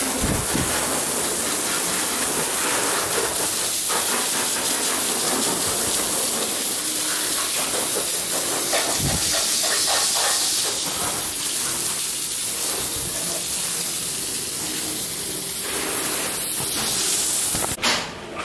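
Water jet from a hand-held hose spray nozzle hitting a car's bodywork, wheel and the concrete floor: a steady hiss of spray that cuts off near the end.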